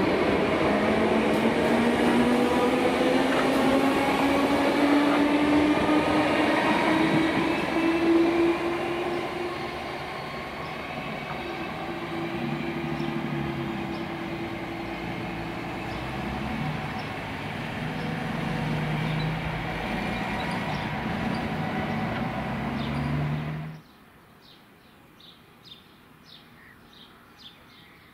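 Southern Class 377 electric multiple unit pulling away, its traction motors whining and rising steadily in pitch as it accelerates. This is followed by a quieter, steady electric train running sound that cuts off abruptly about three-quarters of the way through, leaving faint bird chirps.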